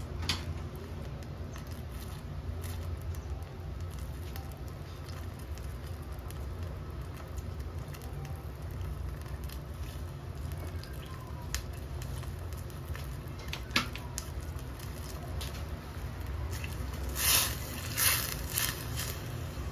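Coconut-milk broth with eggplant and tofu simmering in a stainless steel saucepan on a gas burner: scattered small bubbling pops over a steady low rumble. Near the end, a silicone spatula stirs the pot, making a few brief, louder sloshing scrapes.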